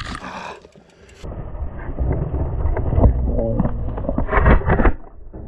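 Mountain bike running fast down a dirt trail: a steady low rumble of tyres and wind, with the bike clattering and knocking over bumps, and a quick run of knocks a little before the end.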